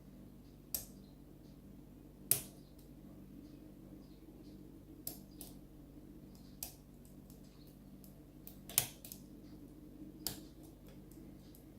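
Lock pick working the pins of a pin-tumbler door-lock cylinder held under tension: sparse, sharp metallic clicks at irregular intervals, about seven clear ones with fainter ticks between, while the lock sits in a false set. A faint steady hum runs underneath.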